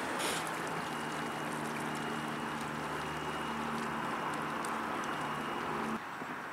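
Small electric boat motor running with a steady low hum over a constant wash of water. The hum stops abruptly near the end.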